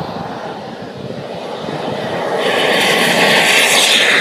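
Radio-controlled T-33 model jet's turbine engine running at take-off power. It grows louder as the jet rolls toward and past the microphone, and its pitch falls as it goes by near the end.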